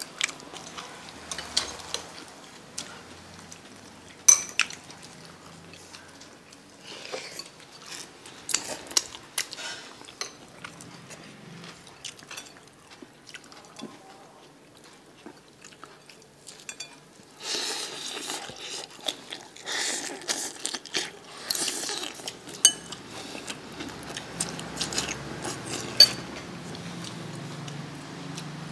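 Metal fork clinking and scraping against a bowl of noodles and greens, mixed with chewing. Scattered sharp clicks, busier for several seconds past the middle.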